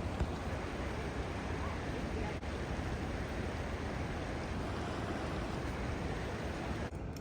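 Steady rushing of fast-flowing water, an even roar with no pauses. Its high hiss thins out just before the end.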